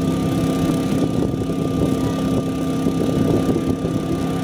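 An engine running steadily at one constant pitch, a continuous hum.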